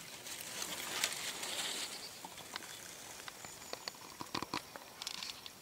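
Soft rustling with scattered small crackles of dry fallen leaves and twigs, as someone moves through undergrowth and leaf litter.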